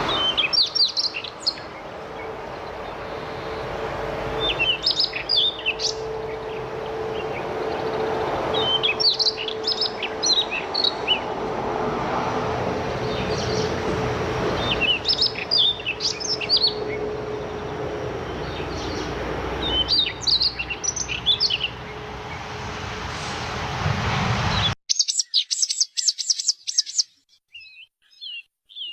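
A songbird sings the same short phrase of quick, high chirps about every four to five seconds, over a steady background rumble with a low hum. Near the end the sound cuts suddenly to a different bird chirping rapidly against a quiet background.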